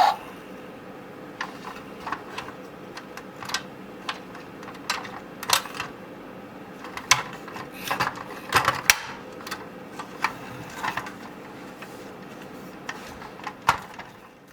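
Irregular light clicks and knocks of a plastic toy construction truck being handled, its parts moved and set down, over a faint steady hum.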